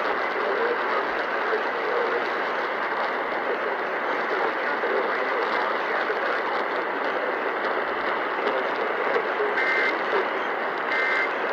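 Steady radio static hiss from an off-air receiver. Near the end come two short warbling bursts of two-tone data, the start of an Emergency Alert System SAME header.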